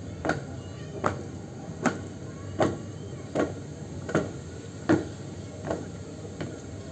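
A flag troop marching in step: boots striking the ground together about once every 0.8 s, the strikes fading near the end.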